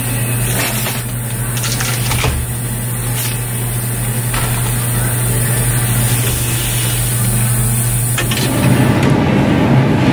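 Supermarket background noise: a steady low machine hum with a few faint clicks. The hum changes character about eight seconds in.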